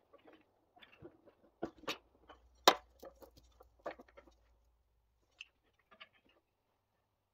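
Short metal clicks and knocks as a small carburettor is handled and pushed onto the engine's intake, with one sharp knock a little before the middle.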